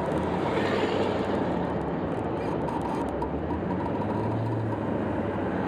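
Steady road and engine noise inside the cab of a pickup truck with the old 7.3 diesel, driving while towing a heavy load, with a low hum under an even rush.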